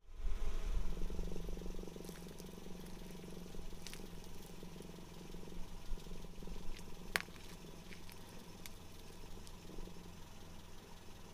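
Car engine running low and steady as the tyre rolls slowly over wrapped toy slime packs, with a few sharp crackles and pops as the wrappers are crushed.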